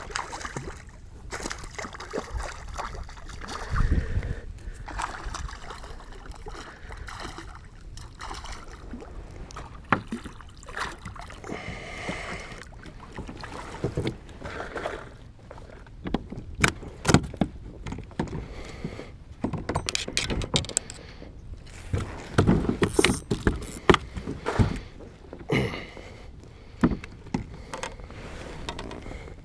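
Handling noises in a fishing kayak while a hooked smallmouth bass is fought: irregular knocks and clicks, with a low thump about four seconds in and the loudest, most frequent clicks in the second half.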